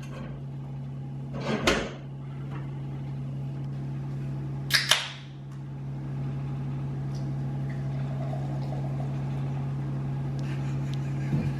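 Two aluminium beer cans opened with a sharp hiss each, about three seconds apart, then beer poured from a can into a glass, over a steady low hum.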